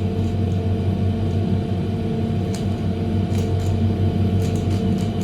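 Air-conditioning unit in a Ferris wheel gondola running with a steady, loud hum of several low tones. A few faint clicks of a Megaminx puzzle being turned come in the second half.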